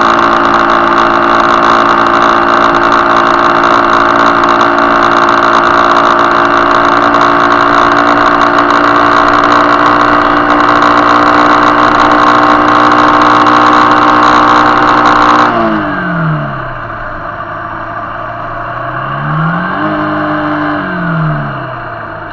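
Motorcycle engine running steadily at cruising speed with wind rush. About two-thirds of the way in the throttle closes and the engine note falls as the bike slows. Near the end it rises and falls briefly once more.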